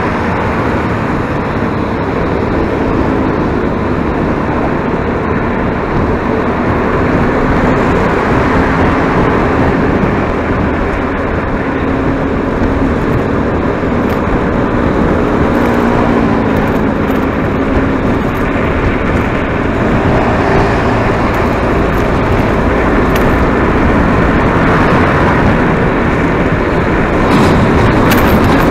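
Steady road and wind noise of a vehicle travelling at speed, with an engine note rising and falling in places.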